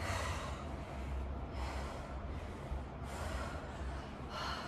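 Heavy breathing of a woman exercising hard, with a sharp, hissy breath about every second and a half as she works through lunges.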